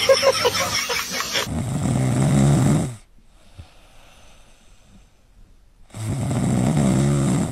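A dog snoring loudly: two long snores, each about a second and a half, with a quiet gap of about three seconds between them.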